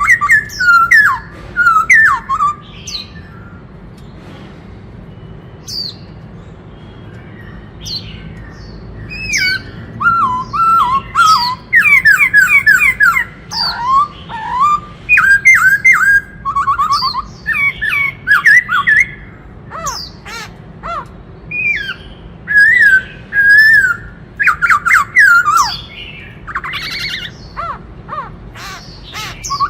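Black-throated laughingthrush singing loud, varied whistled phrases that glide up and down, with quick runs of notes and fast trills. The song breaks off for several seconds about three seconds in, then resumes almost without pause.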